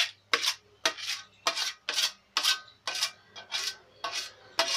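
Spatula scraping thick cashew paste out of a stainless steel bowl, a run of short, sharp scraping strokes about two a second.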